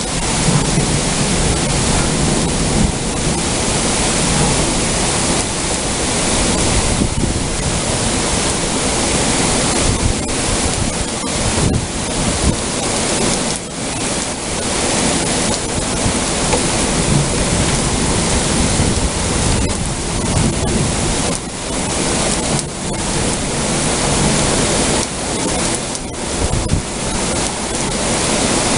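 Heavy thunderstorm rain pouring down in a dense, steady hiss, with strong wind gusting in uneven low rumbles across the microphone.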